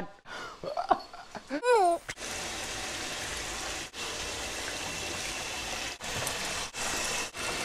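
Bathtub faucet running, water pouring steadily into a partly filled tub with an even splashing hiss, after a couple of short vocal sounds in the first two seconds.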